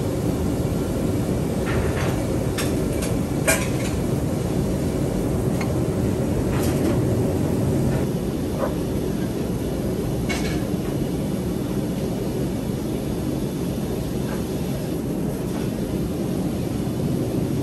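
Kitchen machinery running with a steady low rumble, with occasional sharp clicks and clinks scattered through it.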